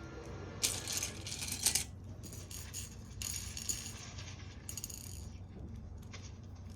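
Small plastic LEGO pieces clattering and rattling in several short bursts, as if being rummaged through or handled, over a steady low hum.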